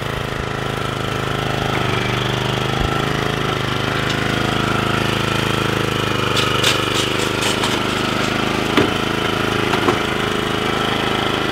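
Bob-Cat commercial walk-behind mower's small engine running steadily as the mower is loaded up an aluminium ramp onto a trailer, with a quick run of light rattles about six seconds in and a couple of knocks near the end.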